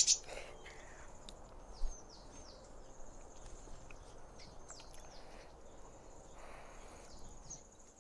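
Forest ambience: a bird repeating short high calls that slide down in pitch, over a steady high insect whine. A couple of sharp clicks right at the start and a soft thump about two seconds in.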